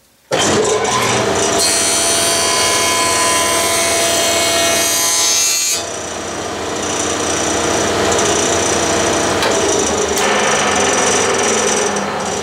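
Grizzly jointer running while a board's edge is fed across its cutter head, the cutter planing the edge flat. The sound starts abruptly just after the start. The cutting is loudest for about the first six seconds, then the machine keeps running a little quieter with the cut finished.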